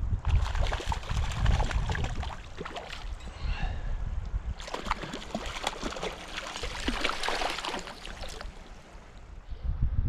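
A hooked rainbow trout splashing and thrashing at the water's surface in two spells, the second starting about halfway through, with wind rumbling on the microphone at the start.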